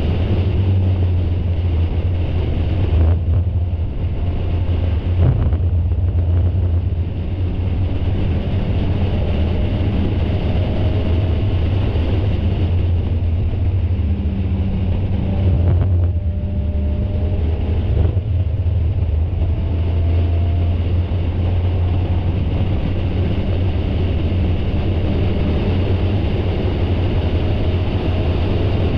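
Spec Miata race car's four-cylinder engine running hard under racing load, heard from the onboard camera with wind noise. The steady drone eases briefly a few times, around 3, 6 and 16 seconds in.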